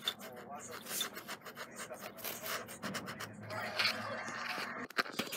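Scratching and rubbing on a cardboard box: an irregular run of short rasping scrapes, with a sharper knock near the end.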